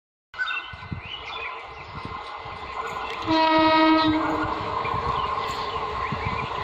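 ICF Medha electric multiple unit (EMU) local train approaching on the line, sounding its horn once: a single steady pitched blast lasting about a second, midway through. A steady rumble runs underneath.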